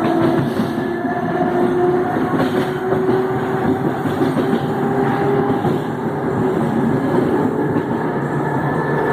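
Electric multiple-unit train TUE 1726 running, its traction motors growling with several tones that slowly rise in pitch over steady wheel-on-rail noise.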